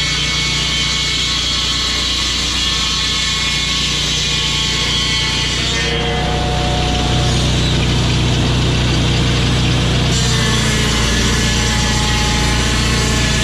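A sawmill running steadily as it cuts hardwood for fence timber: an engine drone under the noise of the saw in the wood, with the sound changing about six seconds in.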